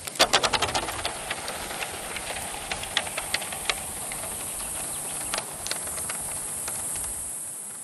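Water being poured out of a bottle onto a sloping road: a quick run of glugs as it starts, then a steady splashing hiss with scattered small clicks that fades out near the end.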